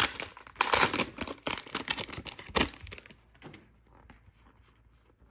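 Foil booster pack wrapper crinkling and being torn open, with sharp crackles, loudest in the first three seconds, then faint rustling handling.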